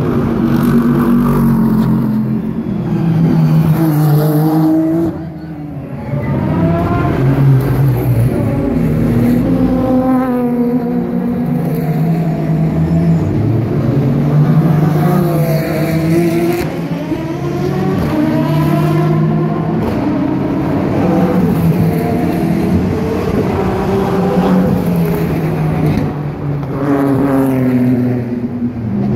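Loud GT race car engines as one car after another accelerates past, each engine note climbing in pitch and dropping back at the gear changes, with a brief lull about five seconds in.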